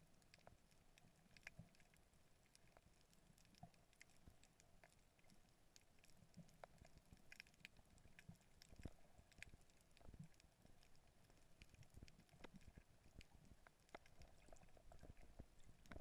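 Faint underwater ambience picked up through a GoPro's waterproof housing: a low hiss with scattered, irregular clicks and crackles.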